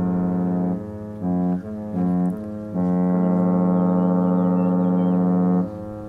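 Cruise ship's horn sounding a low steady note in blasts: a long blast that ends about a second in, two short blasts, then a long blast of about three seconds that stops shortly before the end.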